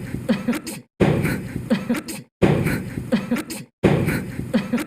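A young man's sneeze, the same short clip repeated over and over, about one every second and a half with brief silent gaps; voices are mixed in with each sneeze.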